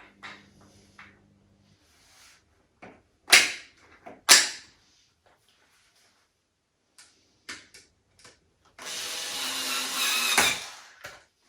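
Plastic rocker parts being handled, with light clicks and two sharp knocks a second apart, then a cordless drill-driver running for about two seconds to drive a screw into the frame, cutting off abruptly.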